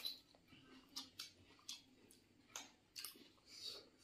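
Faint, close chewing and mouth smacking of people eating rice and fish by hand, with a few short, scattered wet clicks.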